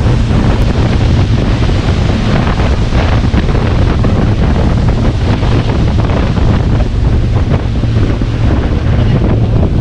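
Heavy wind buffeting the action camera's microphone over loud rushing water, with a steady low drone underneath.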